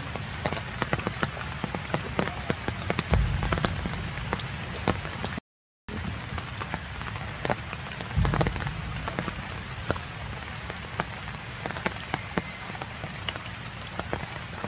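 Rain pattering steadily, with many separate drops ticking sharply close by. A low rumble swells up twice, and the sound cuts out completely for a moment partway through.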